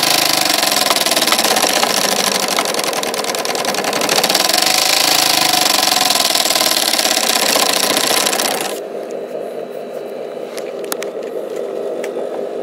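Mauser Spezial BHE 6-4 twin-needle chain-stitch sewing machine running fast, stitching through two layers of thick blanket with a dense, rapid mechanical rattle. It stops about nine seconds in, leaving a quieter steady hum and a few light clicks.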